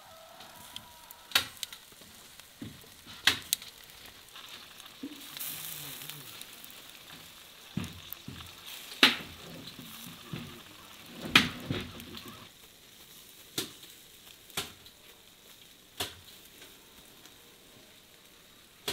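Wood fire under hanging roast chickens, a faint sizzle broken by sharp crackling pops every second or two, some loud, as fat drips onto the hot coals.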